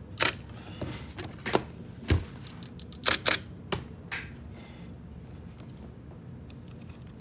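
Nikon D500 DSLR shutter firing a series of single test shots: about seven sharp, irregularly spaced clicks in the first four seconds, then quiet room noise.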